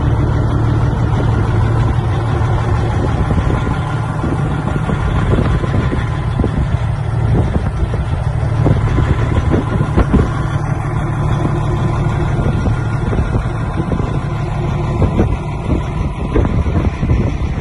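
Western Star semi tractor's Detroit Diesel Series 60 inline-six diesel idling steadily, with wind gusting on the microphone.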